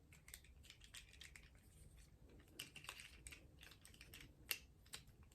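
Faint scattered clicks and taps of a plastic Transformers action figure being handled and its joints moved, the loudest click about four and a half seconds in.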